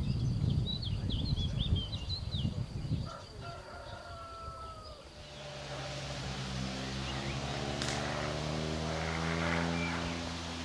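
Outdoor ambience with small birds chirping over a low rumble, then from about halfway an engine running steadily for several seconds, its pitch slowly falling.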